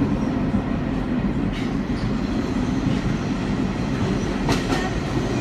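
Vintage New York City subway train running at about 21 mph, heard from inside its cab: a steady rail rumble, with sharp wheel clicks over rail joints, most of them about four and a half seconds in.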